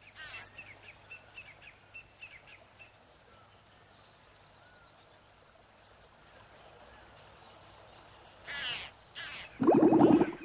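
Faint jungle swamp ambience: a steady insect drone with chirping bird calls over the first few seconds. Then, near the end, loud water bubbling and splashing at the surface.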